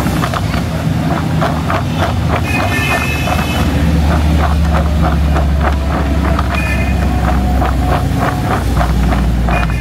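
Raw cut potato fries rattling and knocking inside a plastic tub as it is shaken and tossed to coat them in flour, in quick repeated shakes, over the steady low rumble of an engine running, which grows louder a few seconds in.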